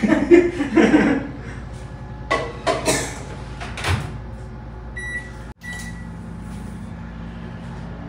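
Microwave-grill oven being loaded and started: a few clunks as the dish goes in and the door shuts, two short beeps from the keypad, then the oven starts running in grill mode with a steady low hum.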